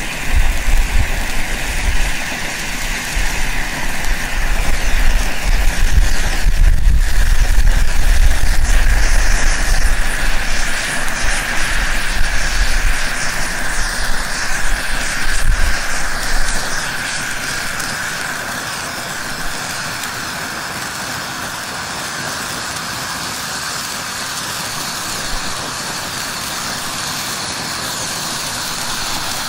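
Red pyrotechnic distress hand flare, 13 years past its expiry date, burning with a steady hiss. A low rumble and a louder level last until about sixteen seconds in, then the hiss goes on steadier and a little quieter.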